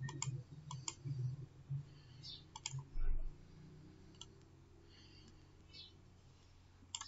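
Computer mouse clicking, a few sharp separate clicks spread out over several seconds. A low thump about three seconds in is the loudest sound.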